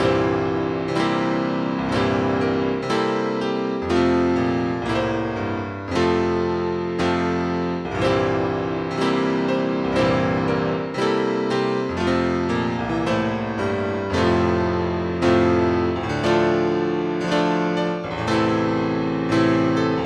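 Solo piano music, with chords struck about once a second.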